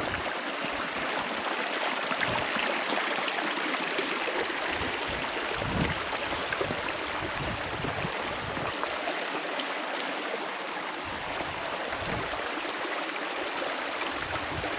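Stream water running over rocks: a steady, even rushing.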